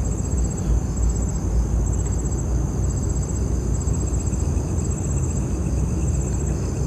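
Crickets trilling in short high bursts about once a second, over a steady low rumble.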